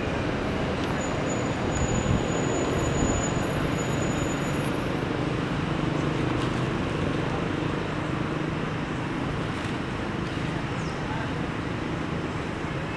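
Steady outdoor background noise, a low rumble with a faint murmur of distant voices.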